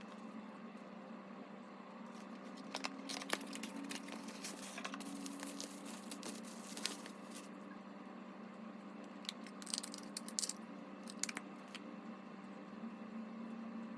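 Packaging being handled and opened: scattered rustling, crinkling and sharp clicks in two spells, over a steady low electrical hum.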